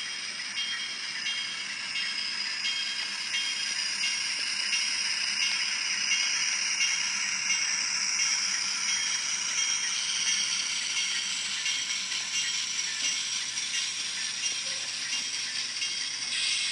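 HO-scale model freight cars rolling past on the track, their wheels rattling steadily, with faint regular clicks over the rail joints through the first half.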